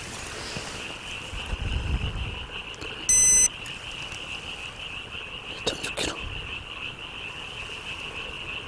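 Steady chorus of frogs calling. About three seconds in, a digital hanging scale gives one short electronic beep as it is reset to weigh a catch. There is some low handling rumble and a couple of soft clicks.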